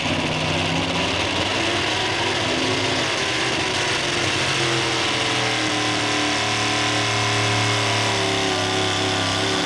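Pickup pull truck's engine idling at the start line while hooked to the sled, its pitch rising and falling slightly.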